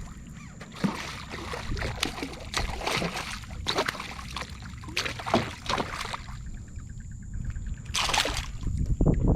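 Water sloshing and lapping against a kayak's hull in short, irregular splashes, with a louder splash about eight seconds in.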